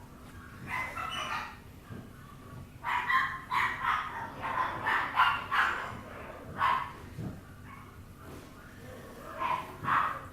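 Papillon puppy yapping: short, high-pitched barks, with a quick run of them in the middle and a few single yaps after.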